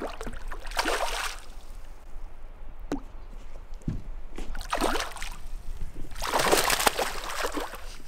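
A hooked bass thrashing and splashing at the water's surface beside the boat while being played on the line, in three separate splashes, the last and loudest lasting over a second near the end.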